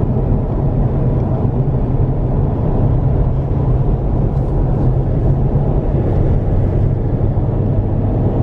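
Steady road and engine noise heard inside a moving car's cabin at motorway speed: a loud, even low drone of tyres and engine.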